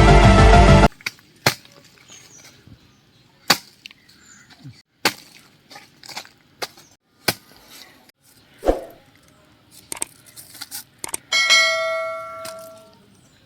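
Music cuts off about a second in, followed by a series of single sharp clicks or knocks spaced irregularly, one to two seconds apart. Near the end comes a metallic ding that rings and fades over about a second and a half.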